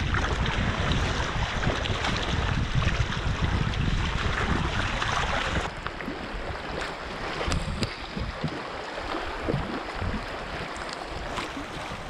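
Wind buffeting the microphone over a steady hiss of rain on the water. About six seconds in the wind rumble drops away, leaving the rain and a few sharp ticks.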